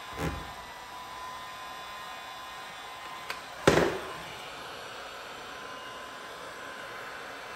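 Two sudden knocks over a steady hiss with a faint high whine: a short one just after the start and a louder one about three and a half seconds in, with a small click just before it.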